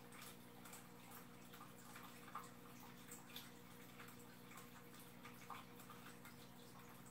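Faint aquarium filter: a steady low hum with water trickling and scattered small drips, a few a little louder about two and a half and five and a half seconds in.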